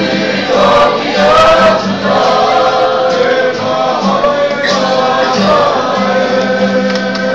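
A mixed group of young male and female voices singing a Māori song together, choir-style, with long held notes over a steady strummed guitar accompaniment.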